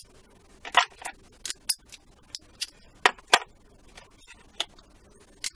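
Chrome steel sockets clicking and clinking as they are fitted onto a 3/8-inch ratchet and set back into a plastic case: about ten sharp, irregular clicks.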